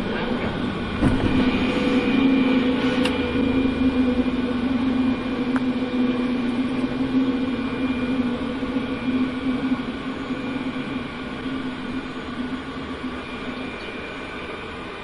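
Cockpit noise of a Fokker 100 jet during takeoff: steady engine and airflow noise with a humming tone, a thump about a second in, and the noise easing off somewhat near the end.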